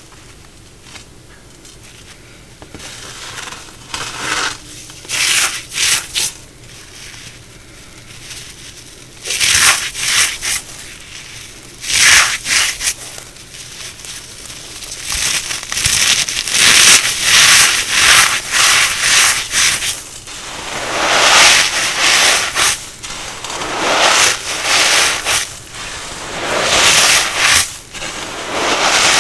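Fragile cornstarch crunchies crushed and crumbled by hand: dry crunching and gritty rubbing in bursts. The bursts are sparse for the first several seconds, then come louder and almost continuous through the second half.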